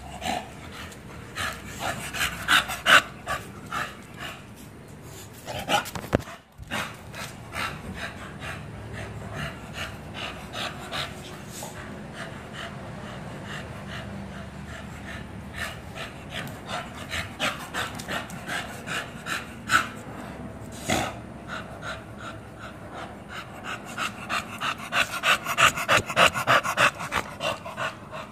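Bully-breed dogs panting hard while play-wrestling, in quick rhythmic runs that grow densest near the end, with a few louder sharp sounds from the dogs in between.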